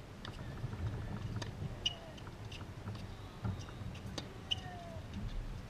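Tennis rally: a few sharp knocks of a tennis ball struck by rackets and bouncing, over a steady low wind rumble on the microphone, with short bird chirps between.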